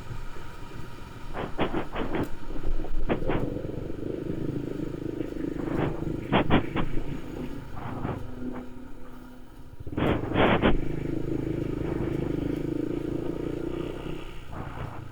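Motorcycle engine running on the move, its note shifting slightly in pitch, with a low rumble underneath. Several clusters of short, sharp sounds cut through about one and a half, three, six and ten seconds in.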